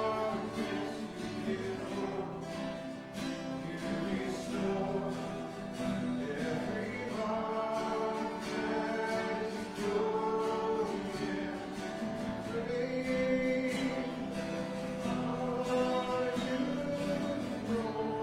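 Congregation singing a worship song with guitar accompaniment, in phrases that rise and fall.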